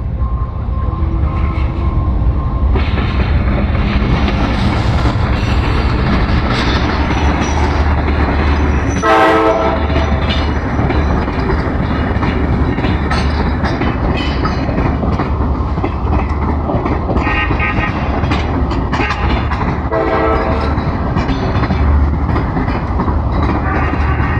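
Diesel locomotive-hauled passenger train running close by, a steady heavy engine rumble with wheel clatter on the rails. The locomotive's horn sounds about nine seconds in, with shorter horn blasts again near seventeen and twenty seconds.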